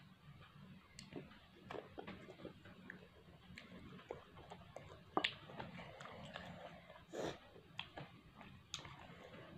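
Close chewing with scattered wet mouth clicks and smacks. The sharpest click comes about five seconds in.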